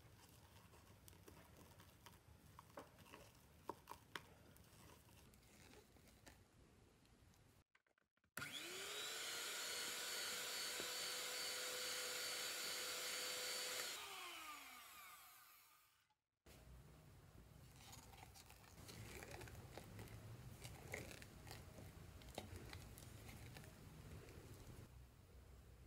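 Faint clicks and scrapes of a spatula folding whipped cream and chocolate in a glass measuring cup. About eight seconds in, an electric hand mixer starts, rises in pitch to a steady hum while beating the mixture for about six seconds, then falls in pitch and winds down.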